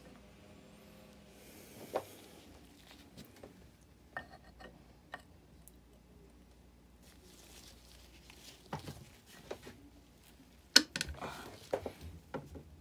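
Metal outboard lower-unit gear case parts being handled and fitted together on a workbench: scattered knocks and clicks, a sharp knock about two seconds in, and a louder cluster of knocks and rattles near the end.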